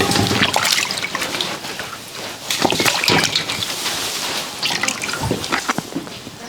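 Water trickling and splashing, with scattered irregular knocks and clatter.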